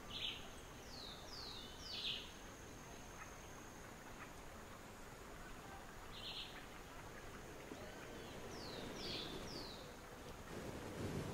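Wild birds calling in the trees: short sharp calls several times, and twice a quick run of three whistled notes that each slide downward. A faint steady high insect-like hum sits under the first few seconds, and a soft low scuffing comes near the end.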